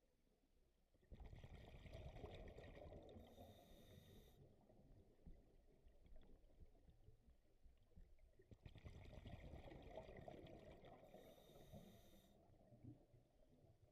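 Scuba diver's breathing heard underwater: two quiet breaths about seven seconds apart, each a bubbling rumble of exhaled bubbles lasting a few seconds, with a short hiss near its end.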